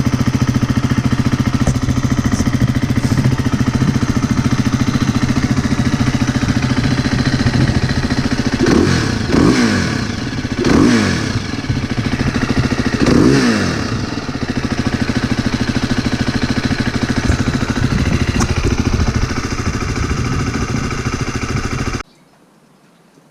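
Husqvarna FE350's single-cylinder four-stroke engine running through its stock exhaust, idling steadily with three quick throttle blips that rise and fall in the middle. The sound cuts off suddenly near the end.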